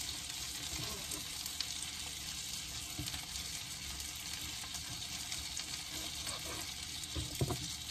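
Steady sizzling and crackling of hot fat in the pan where the steak was just seared, with a couple of soft knocks as the knife slicing the steak reaches the cutting board, one near the middle and one near the end.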